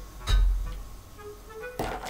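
Background music with a steady melody, broken about a third of a second in by one heavy thump as a plastic soda-water bottle is set down on a wooden table. A hiss starts near the end.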